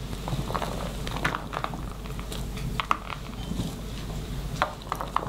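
Scattered soft clicks, taps and rustles of grilled meat and food being handled and laid out by hand, over a steady low hum.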